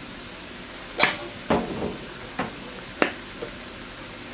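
Metal spoon knocking against the sides of a stainless steel pot while stirring shredded cabbage: four sharp knocks spread over a couple of seconds, then a faint fifth.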